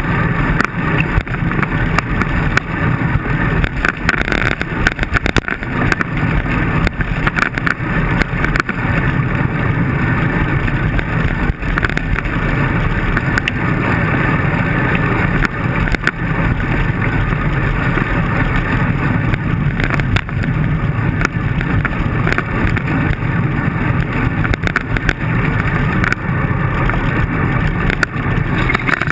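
Steady rushing road and wind noise picked up by a camera mounted on a moving bicycle, with many small knocks and rattles as the bike rolls over rough pavement.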